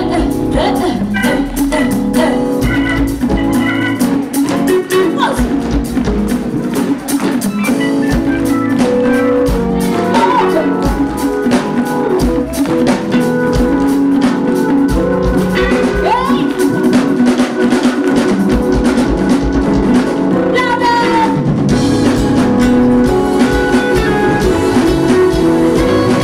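Live band playing a song: drum kit, electric bass and guitar, and keyboard, with a woman singing over it.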